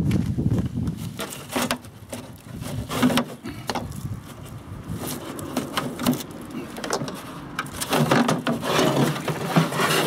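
Handling noise of the plastic grass-discharge chute being unclipped and pulled out of the rear of a Husqvarna ride-on mower: irregular knocks, scrapes and rattles of plastic against metal, busier in the last couple of seconds.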